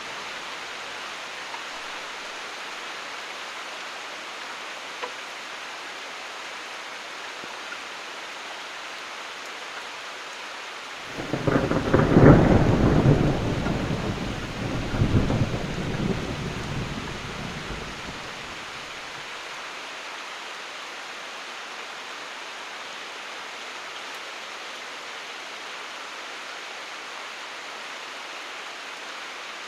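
Steady heavy rain, with a thunderclap about a third of the way in that rumbles loudly, swells again and dies away over several seconds.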